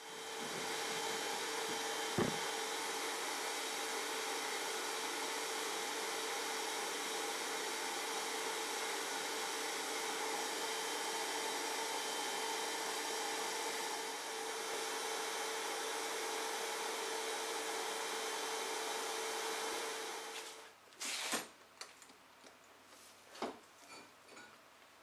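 Abrasive blast cabinet in use: compressed air and grit hiss steadily from the blast gun onto a metal part of a book press, over a steady hum. The blasting cuts off about twenty seconds in, followed by a few short knocks and clunks.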